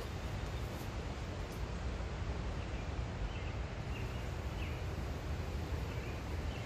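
Woodland ambience: a steady rushing noise with a fluctuating low rumble, and a few faint bird chirps in the middle.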